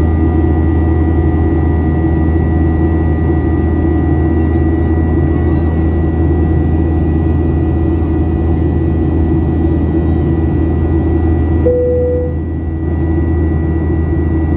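Steady drone of a jet airliner's engines heard inside the cabin, a deep hum with a high whine over it. A short single tone sounds about twelve seconds in.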